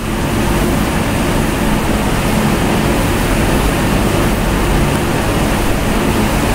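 Steady loud rushing noise with a faint low hum underneath, unchanging throughout: background noise on an open microphone.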